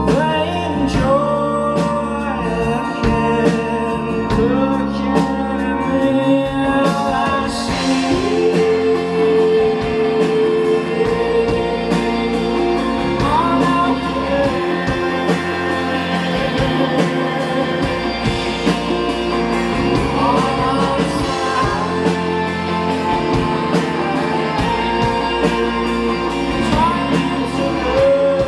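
Live rock band playing with a male lead vocal singing over guitars, organ-like keys, bass and drums; cymbals swell about seven seconds in.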